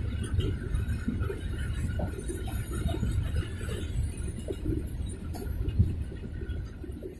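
Freight wagons rolling past on rails: a steady low rumble of wheels on track with irregular clanks and knocks from the open box wagons. The sound fades near the end as the last wagon and brake van go by.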